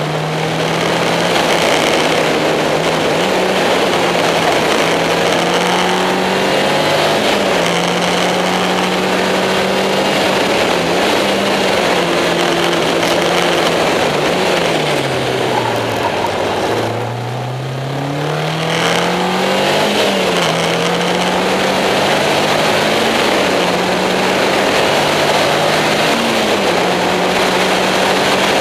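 Caterham sports car engine running hard on track. Its pitch climbs steadily and drops back at each of several upshifts. About halfway through it falls away as the car slows, then climbs again under acceleration, with steady wind and road noise throughout.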